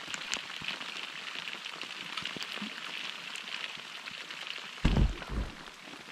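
Steady hiss of water with many fine crackling ticks, broken by a short low rumble about five seconds in.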